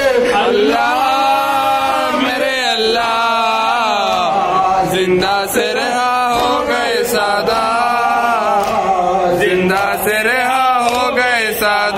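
Men chanting a noha, the Shia mourning lament, with several male voices singing together in long held phrases. Sharp slaps of hands striking bare chests in matam sound at intervals through the singing.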